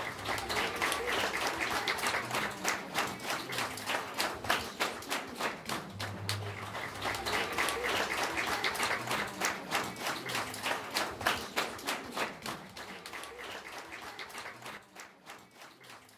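Audience applauding, dying away toward the end.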